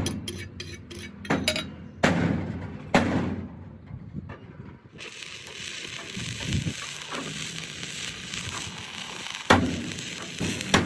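Metal repair work: a few sharp hammer strikes on steel that ring briefly. From about halfway a steady crackling hiss sets in, and two more strikes come near the end.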